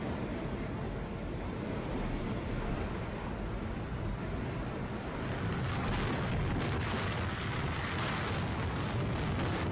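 Hurricane-force wind blowing against the microphone: a steady rushing noise with heavy low rumble. It grows brighter and slightly louder about five seconds in.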